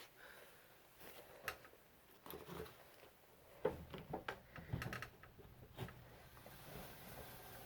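Faint friction of a felt brake dragging on a moving mechanism, with irregular light ticks and knocks through the middle and a steadier soft rubbing hiss near the end.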